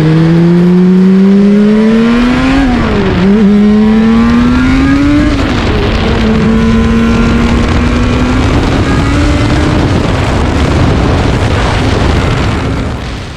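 Suzuki RG500 Gamma's two-stroke square-four engine under way, revving up hard, dipping briefly at a gear change about three seconds in, rising again, then holding a steady speed before fading near the end.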